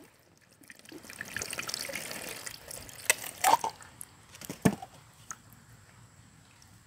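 Coconut water running out of a freshly cracked coconut into a bowl, then a few sharp knocks and cracks as the shell is pulled apart into halves.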